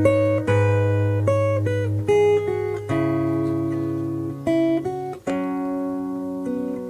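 Instrumental intro of a Cantonese pop song, with plucked guitar notes and chords, played back through loudspeakers driven by a DAN25 pure analog amplifier.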